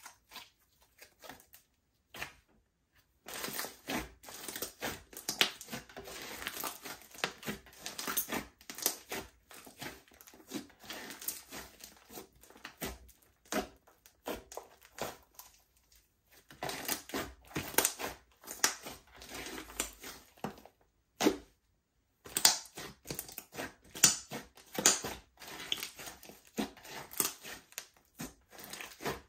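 Slime being mixed and squished: a dense, irregular run of sticky crackling and popping clicks. It is sparse for the first few seconds, with brief pauses about halfway through and again about two-thirds of the way in.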